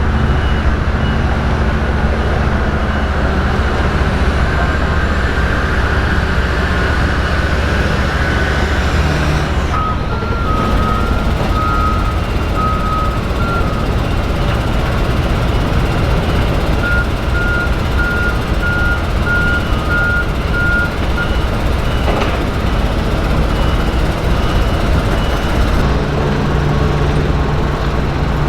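Steady vehicle and heavy-equipment rumble with backup alarms beeping in regular short pulses from construction machinery on an excavation site. Two alarms of different pitch overlap for about ten seconds in the middle.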